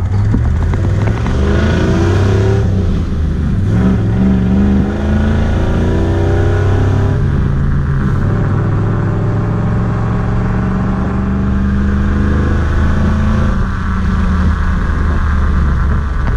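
Supercharged truck engine heard from inside the cab, accelerating through the gears of a manual gearbox: its pitch climbs, drops back at each shift, and climbs again, then runs at a steadier cruising pitch.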